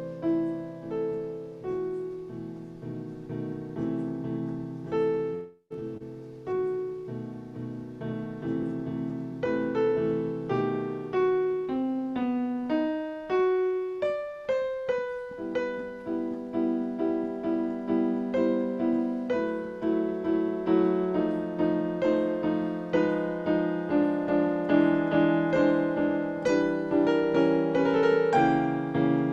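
Solo piano music, a prelude of chords and a melody line, with a brief break about five and a half seconds in and steadier repeated chords in the second half.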